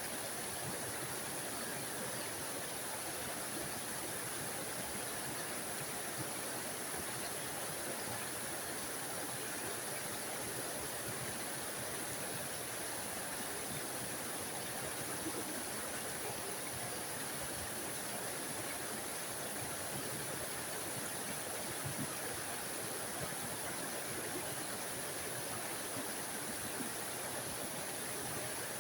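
Small forest waterfall: water splashing and rushing steadily over rocks.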